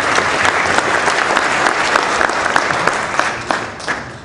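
Audience applauding a speaker's introduction. The clapping is loud at first, then thins out and dies away in the last second or so.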